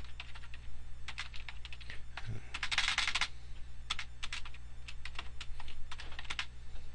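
Typing on a computer keyboard: a run of irregular key clicks, with a quick flurry of keystrokes about three seconds in, over a faint steady low hum.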